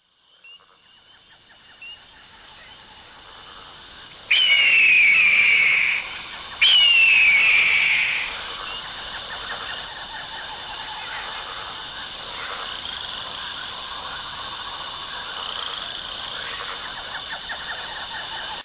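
Jungle creature sound effects: after a near-silent start, two loud falling screeches about two seconds apart, then a steady high-pitched animal chorus.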